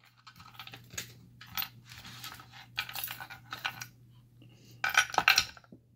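Small metal objects clinking and rattling as they are handled and set down, with a louder clatter about five seconds in.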